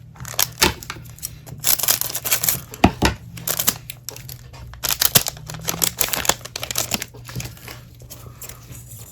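Trading cards and their foil pack wrapper being handled: irregular crinkling and rustling with quick clicks and slides, busiest in the first two thirds and fading toward the end.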